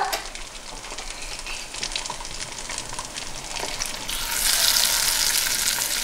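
Baking soda and vinegar reacting, the foam fizzing with a fine crackling hiss that grows louder about four seconds in.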